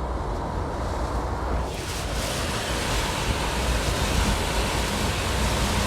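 Hurricane wind blowing hard, buffeting the microphone, over a steady low rumble of surf. About two seconds in, the hiss turns suddenly brighter and stays that way.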